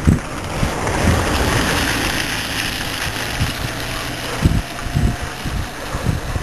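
Wind buffeting the microphone in low thumps, with a rushing noise that swells about a second in and slowly fades.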